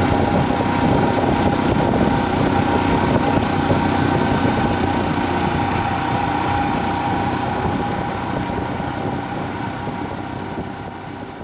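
Royal Enfield Himalayan's single-cylinder engine running at a steady cruise, heard from the bike with road noise, fading away over the last few seconds.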